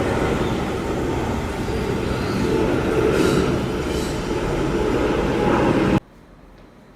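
Loud, steady rumble and roar of a moving vehicle that cuts off abruptly about six seconds in.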